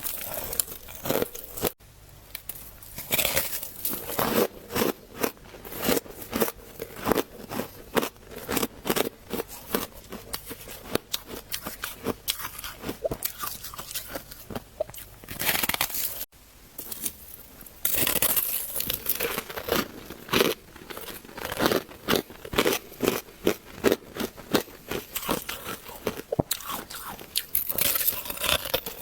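Close-miked crunching of freezer frost being bitten and chewed: a dense, irregular run of crisp crunches. The sound cuts out abruptly twice, about two seconds in and about halfway through, then the crunching starts again.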